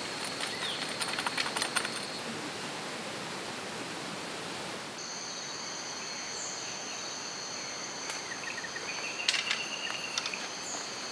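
Tropical forest ambience with a steady high insect drone and light rustling clicks during the first two seconds. About five seconds in it changes to a night chorus of insects: two steady high trills, with a few rustles and clicks near the end.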